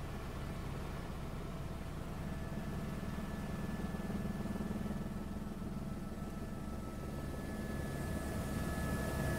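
Helicopter's engine and rotors running steadily in flight, heard from inside the cabin: a dense low drone with a few thin steady higher tones above it, getting a little louder near the end.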